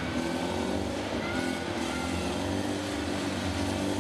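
Banger-racing van's engine running steadily, a low even engine note.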